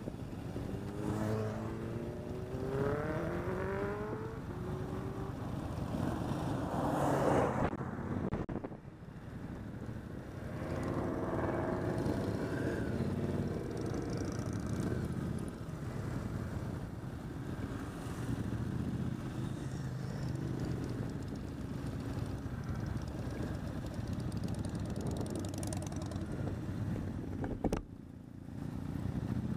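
Motorcycle engine running under way, rising in pitch in the first few seconds as it accelerates and again a little before halfway, over the rush of wind on the microphone.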